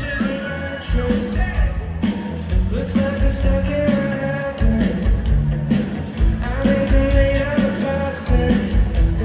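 Live rock band playing: sung vocals over electric guitar, bass and a steady drum beat.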